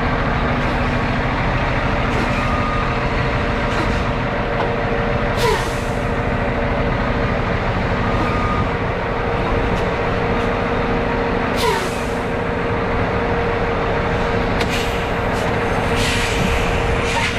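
Volvo VNL semi-truck's diesel engine running steadily while the truck is manoeuvred into position at a loading dock. Two sharp air hisses cut through, about five and a half and eleven and a half seconds in.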